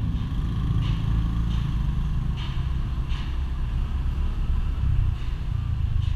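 Motorcycle engine running as the bike rides along, heard from the bike itself as a steady low rumble.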